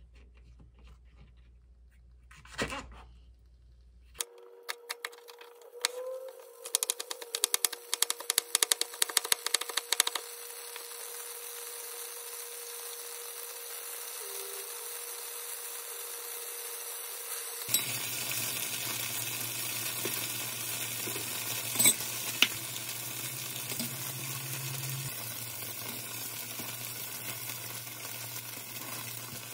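A knife chopping green onion on a plastic cutting board in quick strokes, followed by tofu cubes sizzling steadily in oil in a frying pan, with a few sharp clicks of chopsticks turning the tofu.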